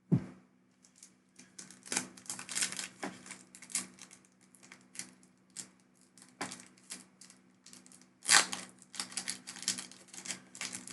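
Pokémon trading cards and a foil booster-pack wrapper being handled at close range: a busy run of small clicks, taps and crinkles, with sharper snaps just after the start and about eight seconds in.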